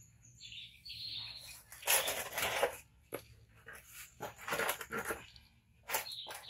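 A few short high squeaks from young macaques, then several bursts of rustling and scuffing as the towel-wrapped monkey and the plastic stools are handled.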